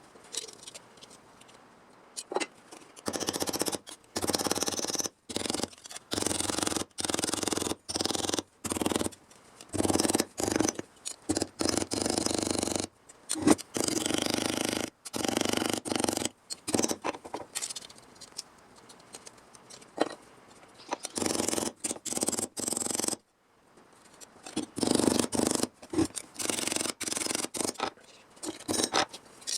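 Hand metal snips cutting sheet steel for a repair panel, in repeated bursts of cutting with short, abrupt pauses.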